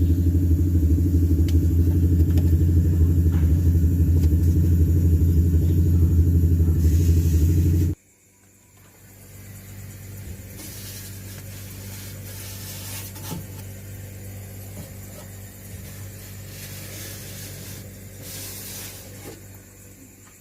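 A motor running with a steady, loud low hum that cuts off abruptly about eight seconds in, leaving only faint background noise.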